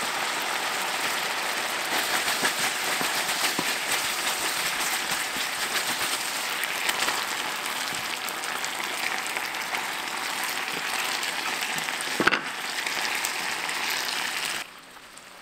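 Spicy gochujang sauce boiling hard in a stainless-steel frying pan, a steady crackling and bubbling. A single knock about twelve seconds in, and the sound drops away shortly before the end.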